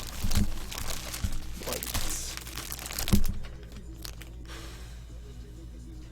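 Plastic crinkling and rustling with a few sharp clicks as trading cards and their packaging are handled, dying away about three and a half seconds in and leaving a steady low hum.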